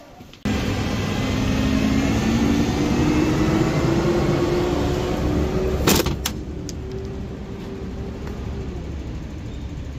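Heavy garbage truck's natural-gas (LNG) engine running, its steady drone carrying a tone that slowly rises in pitch. A sharp click about six seconds in, after which the engine sounds a little quieter.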